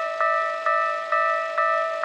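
Japanese railway level-crossing warning bell ringing: an electronic ding struck about twice a second, each strike ringing on in several steady tones. It signals that a train is approaching and the barriers are down.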